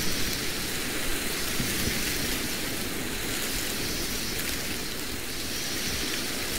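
Steady, rain-like hiss of falling water.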